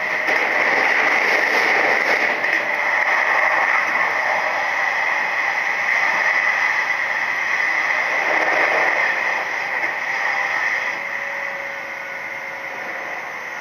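Steady running noise of a Nishitetsu 3000 series electric train at speed, heard from inside the passenger cabin. It gets somewhat quieter near the end.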